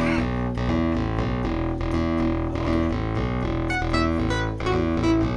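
Roland Juno-106 analogue polysynth with the Kiwi-106 upgrade playing a busy riff on a plucked bass patch: quick short notes over held low notes.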